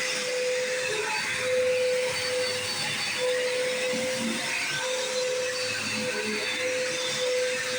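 Bissell PowerForce Bagged upright vacuum cleaner running steadily while vacuuming: a constant motor hum over a rush of air, its loudness swelling slightly now and then.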